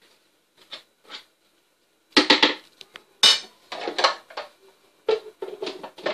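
Clattering and knocking of a plastic food processor bowl and lid being handled. A few light clicks come first, then from about two seconds in a run of irregular, sharp knocks and rattles.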